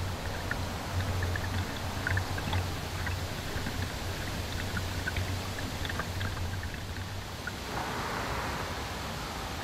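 Shallow river running over rocks: a steady rush of water with many small splashes and trickles, over a low steady hum. About eight seconds in, the sound turns to a smoother, brighter hiss.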